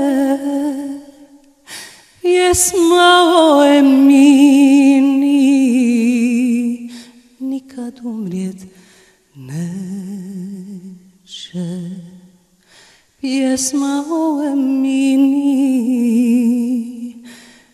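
A single voice singing a slow melody unaccompanied, with long held notes that waver with vibrato, in phrases broken by short pauses.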